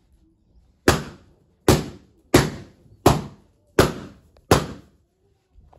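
Six sharp bangs in an even rhythm, about three every two seconds, each ringing briefly in the room, from balloons being popped.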